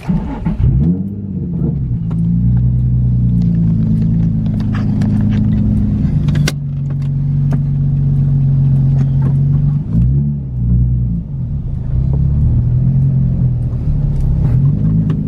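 Nissan 350Z's VQ35DE V6 starting up: it catches, flares up and settles into a steady idle. It is blipped briefly about ten seconds in and again near the end.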